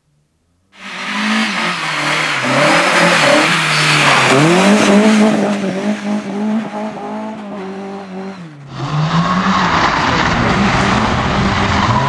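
Lada rally car engine revving hard on a loose dirt stage, its pitch climbing and dropping with throttle lifts and gear changes. After a sudden cut about three-quarters of the way in, a second Lada runs at high revs with rough tyre and gravel noise.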